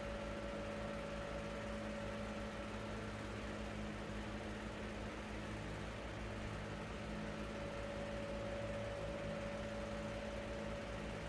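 Steady machine hum with a constant low drone and a thin, even whine above it, unchanging throughout.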